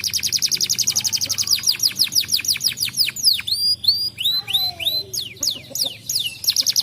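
Domestic canary singing. It opens with a rapid trill of high downward-sweeping notes, about ten a second, shifts about four seconds in to a few slower, upward-curving whistled notes, and returns to a fast trill near the end.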